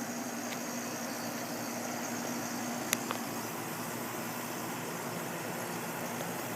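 New Lennox two-stage central air conditioner's outdoor unit running at second stage: a steady compressor hum under the rushing air of the condenser fan. A sharp click about three seconds in.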